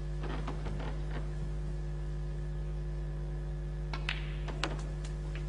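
Steady electrical mains hum, with two sharp clicks about half a second apart a little after four seconds in: a snooker cue striking the cue ball, then the cue ball hitting the object ball.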